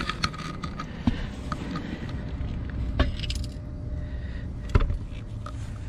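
Light knocks and clicks as a removed HVAC blower motor is handled on concrete, the loudest nearly five seconds in, over a steady low rumble.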